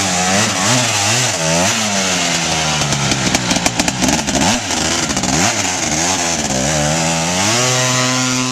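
Honda CR500 single-cylinder two-stroke engine swapped into a 400EX quad, revved up and down again and again under the rider's throttle, then held at a steady high rev near the end.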